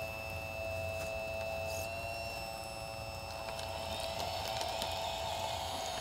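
Electric drive motors and gearing of a 1/14-scale Stahl RC bulldozer whining steadily as it pushes dirt forward, the whine a little louder from about four seconds in.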